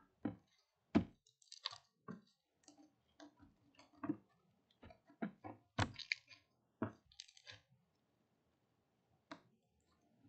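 Homemade slime, still a little sticky, squeezed and pressed by hand on a wooden table: irregular squelches and sticky clicks that stop about three-quarters of the way through, with one more click near the end.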